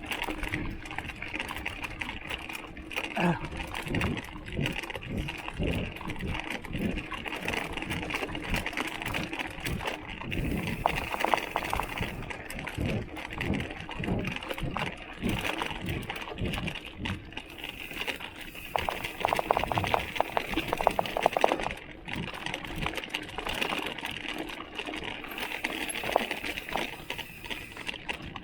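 Giant XTC mountain bike ridden over rough ground, its bottle cage rattling and knocking irregularly with the bumps over a steady background of tyre and wind noise. Busier, brighter rattling comes a little after ten seconds in and again for a couple of seconds about two-thirds of the way through.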